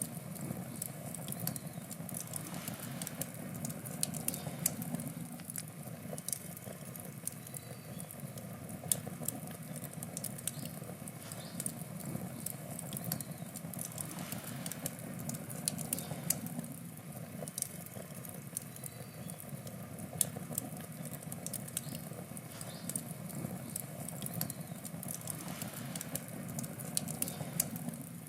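Wood campfire burning: irregular sharp crackles and pops over a steady low rush of flame.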